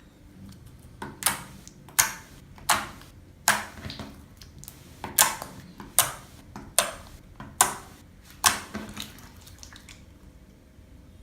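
Slime being squeezed and poked by hand, giving about nine sharp, wet popping squelches in a loose rhythm, with a short pause midway.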